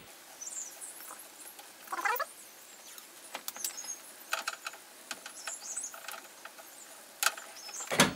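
Tape being pulled off the roll and wrapped around a power-window motor's wiring connector: short squeaky rips and crackles, the loudest a rising squeal about two seconds in.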